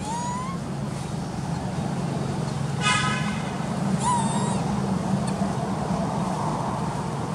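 Steady low motor hum, like a vehicle engine running, with one short horn-like toot about three seconds in. Two brief rising high chirps come at the start and about four seconds in.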